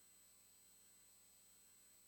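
Near silence: a faint steady hiss with a thin high electronic whine.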